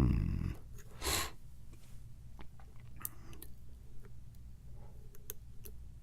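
A low thump at the start and a short, sharp exhale through the nose about a second in, then scattered faint clicks of a lock pick and tension wrench working the pins of an American Lock 1100 padlock.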